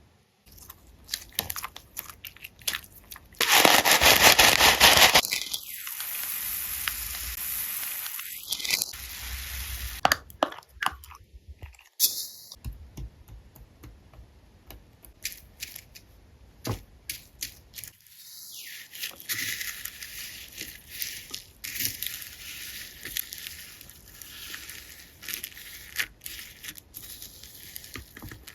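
Crackling and clicking noises as slime materials are handled and worked, with a louder rushing noise for about two seconds around four seconds in.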